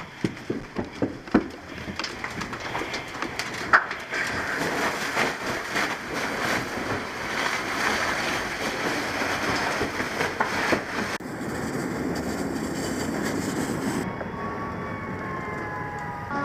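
A steady rushing noise with scattered knocks and bangs, broken by abrupt cuts. Near the end a siren sets in, its pitch winding slowly downward and growing louder.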